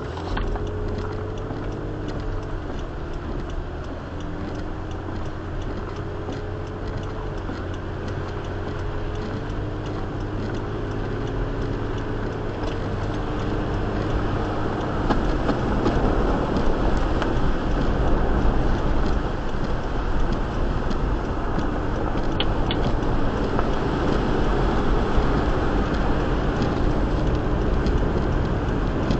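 Car driving on a wet road, heard from inside the cabin: steady engine and tyre noise, with a faint engine hum that wavers in pitch in the first half. The road noise grows louder about halfway through.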